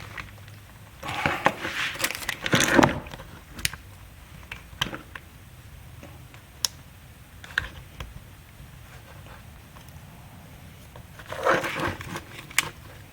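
Small plastic clicks and scrapes from prying at the locking tabs of an old turn signal switch's plastic connector block, with scattered sharp ticks and two louder bursts of scraping and clicking, one a second or so in and one near the end.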